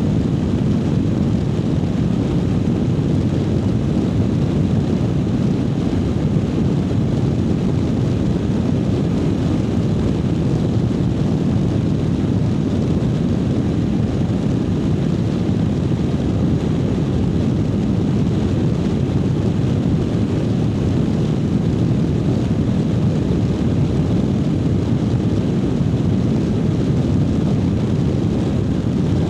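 Triumph Speed Twin 900's parallel-twin engine running at a steady cruise while riding, mixed with wind rush on the microphone. The sound holds an even pitch and level throughout, with no revving or gear changes.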